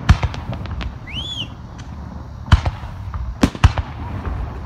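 Aerial fireworks shells bursting: sharp bangs near the start and again from about two and a half seconds in, with smaller crackles between, over a steady low rumble. A brief whistle rises and falls about a second in.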